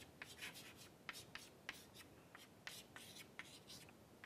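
Chalk writing on a chalkboard: faint, irregular short taps and scratches as symbols are chalked up.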